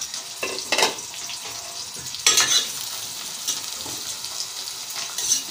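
Chopped onions frying and sizzling in hot oil in an aluminium pot as they start to brown, while a metal ladle stirs them and scrapes against the pot in several short strokes, the loudest about two seconds in.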